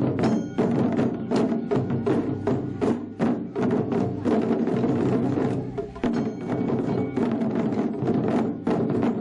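Children's taiko drum ensemble playing barrel drums with wooden sticks: a fast, dense run of strokes, with sharp wooden clicks among the drumbeats and a brief let-up about six seconds in.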